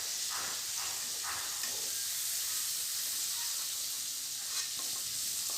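Cauliflower florets frying in hot oil in a kadai: a steady sizzle, with a few faint clicks in the first second or so and again near the end.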